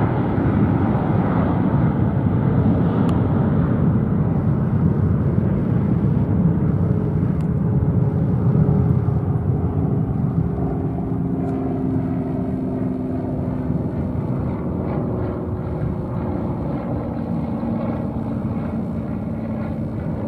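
Airbus A320-232's twin IAE V2500 turbofan engines at takeoff thrust, a steady deep rumble through the takeoff roll, liftoff and climb-out. Faint humming tones come through about halfway, and the rumble slowly eases toward the end as the jet climbs away.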